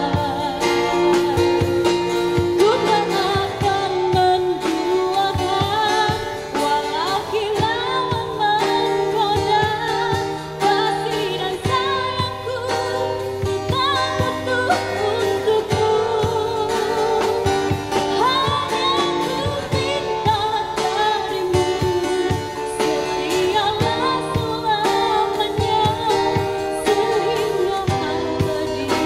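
A woman singing into a microphone, amplified, backed by a live band with drums and guitar. She holds long notes that waver in pitch over a steady beat.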